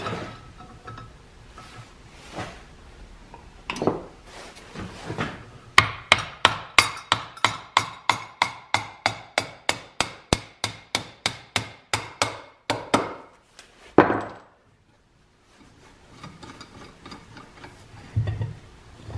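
Hammer tapping on the bolted follower plate of a steam engine piston, seating it over the new rings. A few scattered knocks, then a quick run of light strikes at about four a second that fades over some seven seconds, ending in one harder blow.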